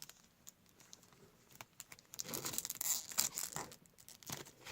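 Trading-card packaging crinkling and tearing as cards are handled: a few faint clicks, then a burst of crackly plastic crinkling from about two seconds in, and again near the end.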